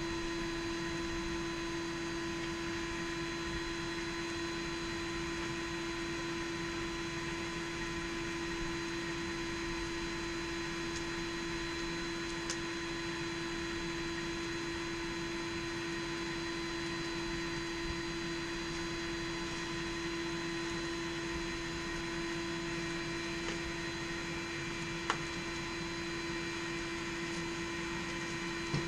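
Forge air blower running steadily with a constant electric hum, with a few faint clicks and a light knock near the end.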